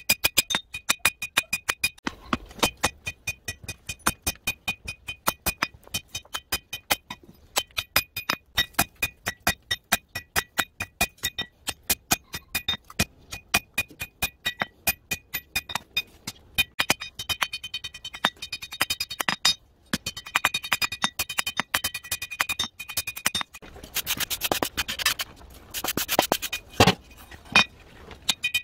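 Hand hammer forging red-hot bearing-race steel on a steel anvil: a fast, steady run of hammer blows, several a second, each leaving a ringing anvil tone. Near the end the blows come with a rougher scraping noise between them.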